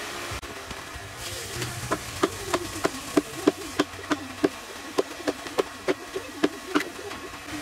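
A hand-held chopping blade hacks into a wooden log with quick, sharp chops, about three a second, starting about two seconds in. A fly buzzes close by, its pitch wavering up and down.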